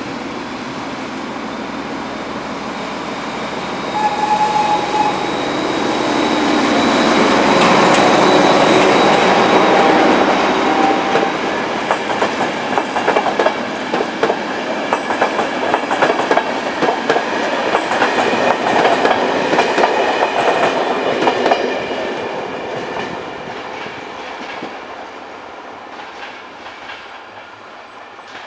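Diesel locomotive hauling passenger coaches passes at speed. The engine sound builds to its loudest as the locomotive goes by, then the coaches' wheels give a rapid clickety-clack over the rail joints, which fades away near the end.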